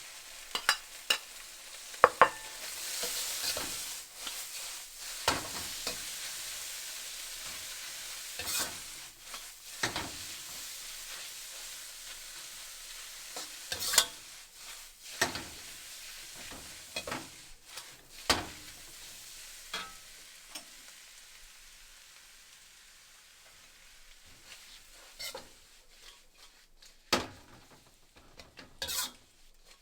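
Food sizzling in a hot pan while a utensil stirs it, knocking and clinking against the pan now and then. The sizzle is strongest early and slowly dies down toward the end.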